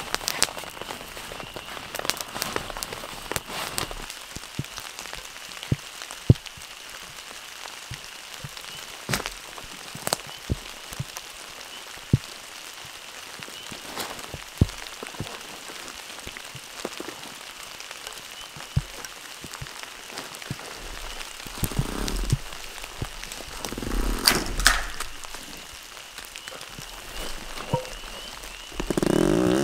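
Steady heavy rain falling through the forest, with many sharp drops clicking through it and a few louder rustling noises near the end.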